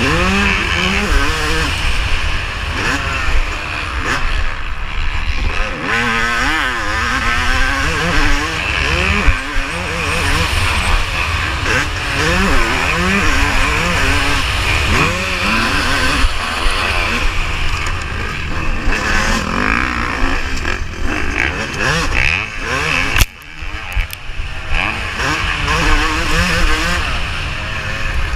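Yamaha YZ250 two-stroke motocross engine revving up and down repeatedly as the bike is raced over a dirt track, under a constant heavy low rumble. Near the end the engine note drops out briefly and then picks up again.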